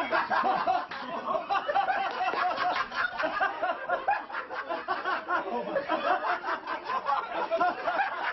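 Men laughing hard and without a break, several voices overlapping.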